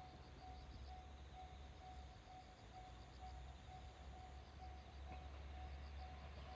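Faint insects chirping in an even rhythm, about two to three high chirps a second, over a low rumble.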